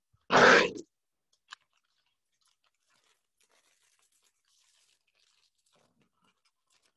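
A plastic coin bag crinkling once, briefly, just after the start, then near silence with one faint tick.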